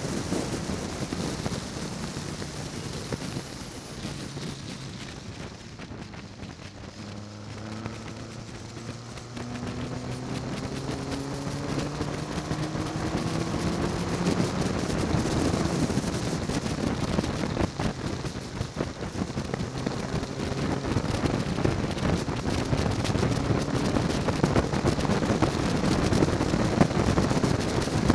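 Westfield sports car's Ford Zetec four-cylinder engine at speed on track, with heavy wind rush over the open cockpit. The engine note falls away as the driver lifts off a few seconds in, then rises steadily under hard acceleration from about seven seconds in and stays loud, with one brief dip about two-thirds through.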